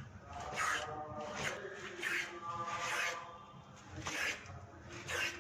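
Honda SP125's replaced rear shock absorbers being pushed down and released, giving only soft rubbing sounds about once a second: the shocks no longer make the noise they made before replacement.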